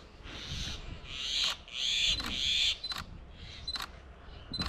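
A handheld camera taking a series of shots: about five short shutter clicks, most of them preceded by a brief high focus-confirmation beep. A rushing hiss between about one and three seconds in is the loudest part.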